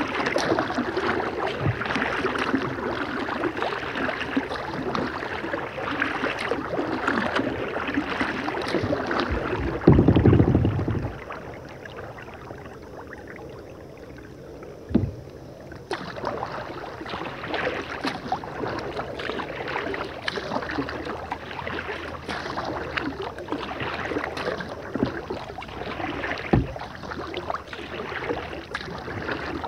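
Kayak paddle strokes on calm river water: the blades dip and splash and water drips and patters off the paddle. About ten seconds in comes a loud low thump, then a few seconds' lull with a single knock, and the paddling resumes.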